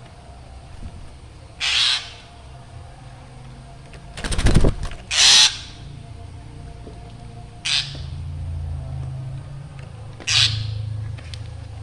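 Black drongo giving short, harsh calls, four of them, each under half a second. Just before the second call there is a loud rapid rattle of clicks.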